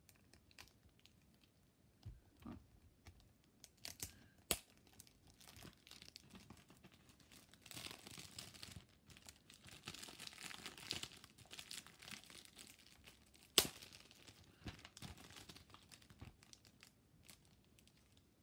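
Clear plastic shrink-wrap being torn and peeled off a DVD case, crinkling, with a few sharp clicks; the loudest click comes a little past the middle.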